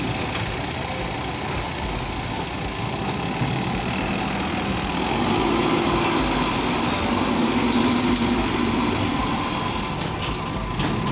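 JCB backhoe loader's diesel engine running steadily, getting a little louder for a few seconds in the middle, with a few light knocks near the end.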